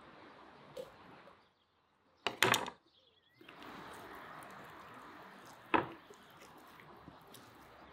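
Kitchen knife and hands working a raw whole chicken on a wooden cutting board: a cluster of sharp knocks about two and a half seconds in, and a single knock near six seconds, over a faint background hiss.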